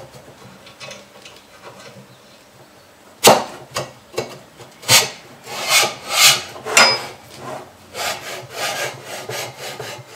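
Drill press worktable being slid down its metal column: one sharp knock about three seconds in, then a run of uneven scraping strokes as the table's clamp collar rubs down the tube.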